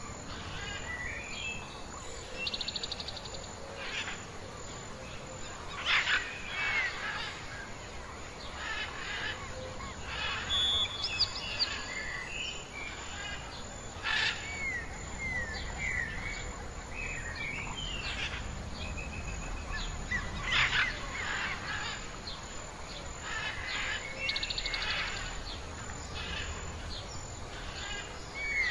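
Wild birds chirping and calling in a mixed chorus: short whistled notes, quick pitch glides and rapid trills. Several louder, sharper calls stand out, about six seconds in, near the middle and about two-thirds of the way through.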